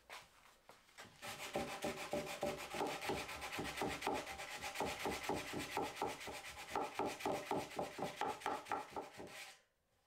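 Sandpaper on a hand sanding block rubbed briskly back and forth over a wooden table apron's corner in quick, even strokes, several a second, smoothing the roundover where the router could not reach. It starts about a second in and stops suddenly near the end.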